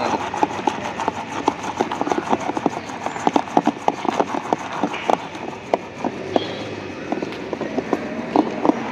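Rapid, irregular clatter of knocks and clinks from a food vendor's utensils, several a second, as a sattu drink is prepared.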